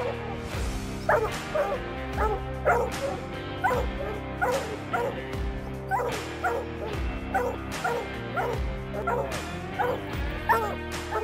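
Hounds barking in short, repeated calls, about two a second, each dropping in pitch. Background music with a steady beat plays underneath.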